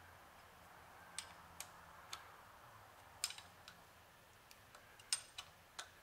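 Scattered light metal clicks, about eight at irregular intervals, as a hex key is worked in a socket-head screw to snug up a clamp on the milling-machine vise setup.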